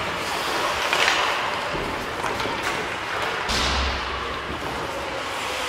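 Ice hockey play: skate blades scraping on the ice with sharp clacks of sticks and puck, and a low thud about three and a half seconds in, in a reverberant rink.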